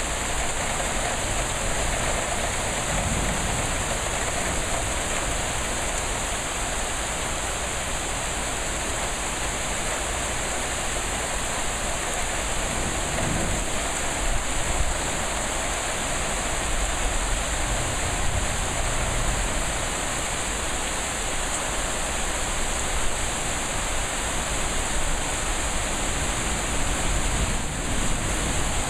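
Heavy thunderstorm rain pouring down in a dense, steady hiss.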